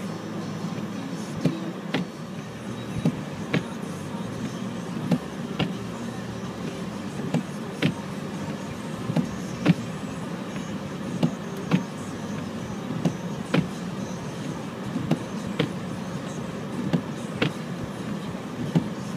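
Car heard from inside the cabin while driving slowly on a snow-covered road: a steady low engine and road hum with irregular sharp knocks about once or twice a second.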